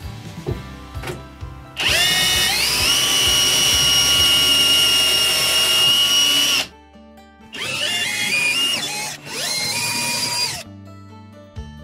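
Makita cordless drill-driver driving screws. First comes one long run of about five seconds, its whine stepping up in pitch as the motor spins up and then holding steady. Then come two shorter runs, each rising in pitch. Background music plays underneath.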